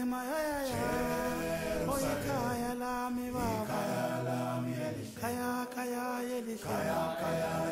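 Background music: unaccompanied a cappella group singing, with long held notes that slide from one pitch to the next.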